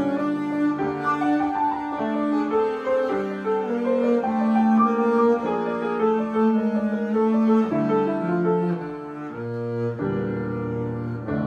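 Double bass being bowed, playing a slow melody of sustained notes in its upper register.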